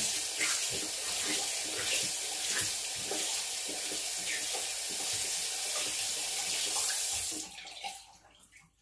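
Water running from a sink tap as a makeup sponge is wetted, a steady rush that is shut off about seven and a half seconds in.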